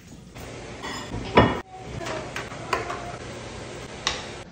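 Kitchen utensils clinking and knocking against a glass mixing bowl and a pan as batter is mixed, with the loudest clatter about a second and a half in.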